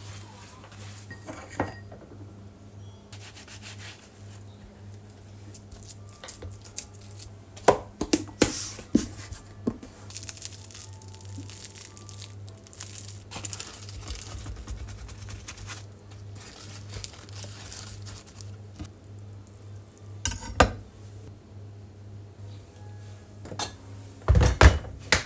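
Kitchen work: dishes and utensils clinking and clattering at irregular intervals, with a few louder knocks, over a steady low hum.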